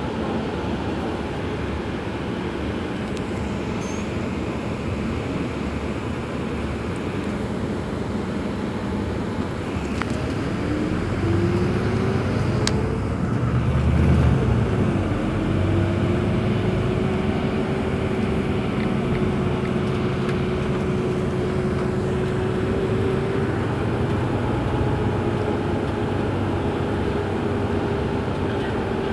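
Iveco Crossway LE CNG city bus idling at a standstill, its gas engine running steadily with a whine. The whine rises about ten seconds in and then holds one steady pitch, while a low rumble swells and fades in the middle.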